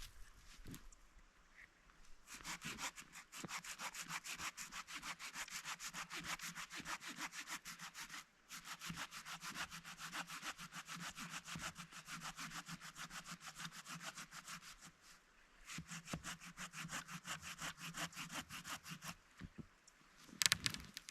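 Hand saw cutting through the trunk of a small, dry, dead standing tree in quick, even strokes, in three long spells with short pauses between them. A couple of sharp knocks come near the end.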